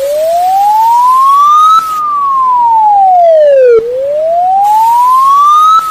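Electronic wailing siren: a single clean tone that slides up for about two seconds, down for about two, then up again, loud and steady in level.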